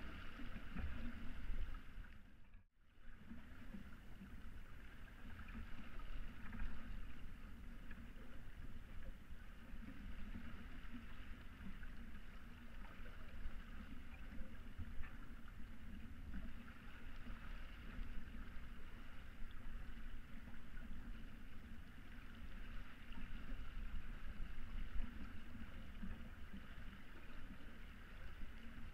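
Water rushing and splashing steadily along the hull of a Hanse 355 sailing yacht under sail. The sound cuts out briefly about two and a half seconds in.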